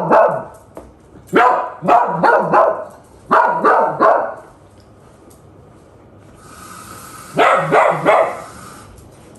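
Pet dog barking in short bursts of two or three sharp barks, with a quiet pause of a few seconds before a last burst near the end.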